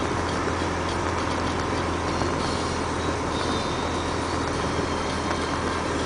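Dump truck's diesel engine running at a steady pace, with tyres on a gravel haul road, heard from inside the cab as an even drone.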